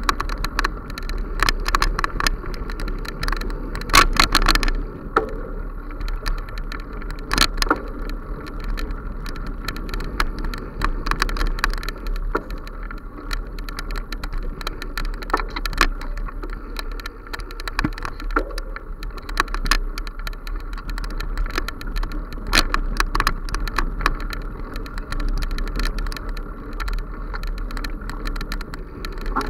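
Handling and mount noise from a camera moving along a bumpy forest dirt path: a steady low rumble with frequent rattles and knocks.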